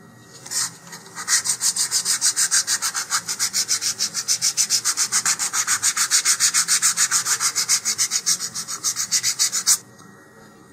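Sanding block rubbed rapidly back and forth along the leading edge of a basswood fin, rounding it off. One short stroke comes first, then a fast, even run of scraping strokes, about seven a second, which stops abruptly near the end.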